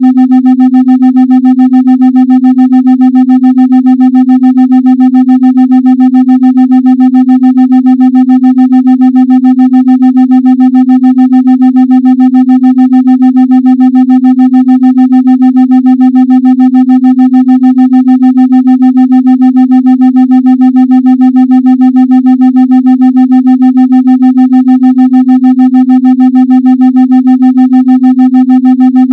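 A steady synthesized 256 Hz tone, used as a meditation tone, with fainter higher overtones. It pulses evenly about three and a half times a second as a brainwave-entrainment beat.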